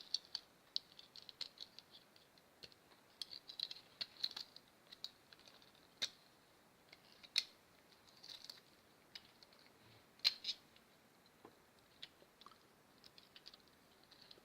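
Faint, irregular clicks and scratches of small plastic and metal die-cast toy-car parts being handled and pressed together, with a few sharper clicks.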